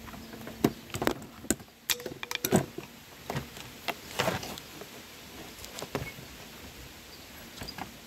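Clicks and knocks of brushcutter parts being handled and fitted together during reassembly: a quick cluster of sharp clicks in the first few seconds, a short scraping rattle near the middle, then a few single clicks.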